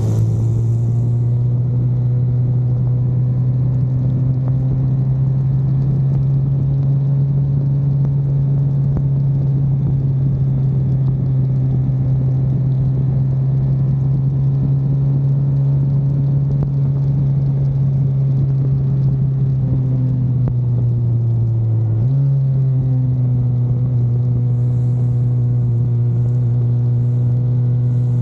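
Engine drone of a car lapping a racetrack, heard from on board, holding a steady pitch and stepping slightly higher about 22 seconds in.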